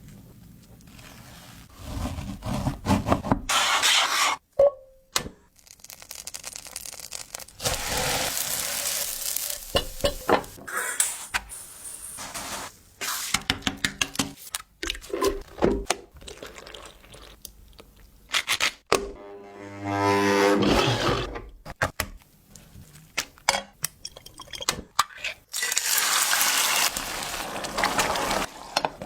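Kitchen food-preparation sounds: a string of clinks, knocks and scrapes of utensils and cookware, with several bursts of liquid or sizzling noise lasting a second or two.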